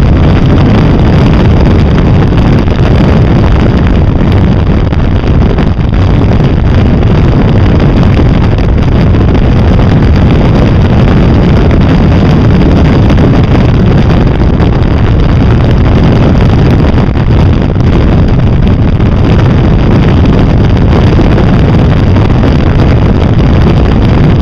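Loud, steady wind buffeting on a vehicle-mounted camera's microphone, mixed with the running engine and road noise of a Can-Am cruising at road speed.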